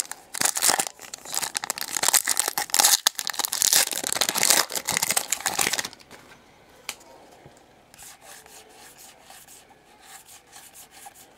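Foil wrapper of a Donruss football card pack being torn open and crinkled for about six seconds. Then the much softer slide and flick of the cards being leafed through.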